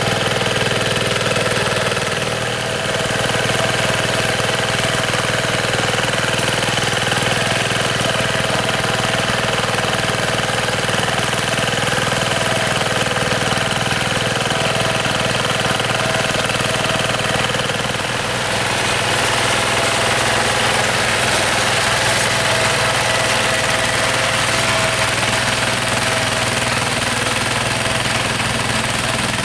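Yanmar TF105 single-cylinder diesel engine of a two-wheel rotary hand tractor running steadily. Its note dips briefly and shifts slightly about two-thirds of the way through.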